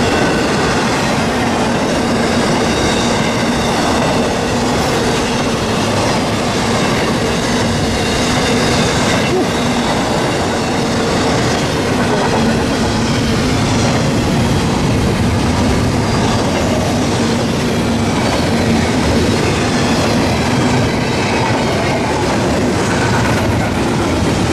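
CSX double-stack intermodal container train passing at speed: loud, steady rumble and clatter of the cars' wheels on the rails, with a faint steady whine mixed in.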